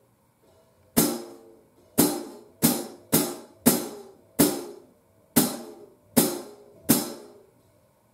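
Paiste 2002 14-inch hi-hat struck with a stick, nine separate hits at an uneven pace. Each hit rings out and fades over half a second to a second before the next.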